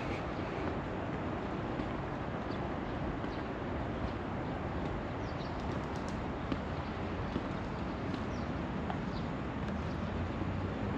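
Steady outdoor ambience of a city park: a low hum of distant traffic, with the walker's footsteps and a few faint bird chirps.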